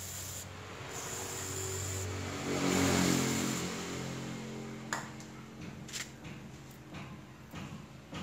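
Aerosol cleaner sprayed in three short hissing bursts onto a motorcycle's gear position switch to flush out caked dirt, with a low hum swelling under the third burst. Light clicks and knocks of handling follow from about halfway through.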